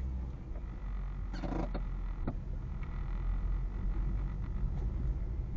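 Low, steady rumble of a car's engine and tyres at crawling speed, heard from inside the cabin, with a brief hiss about a second and a half in and a sharp click shortly after.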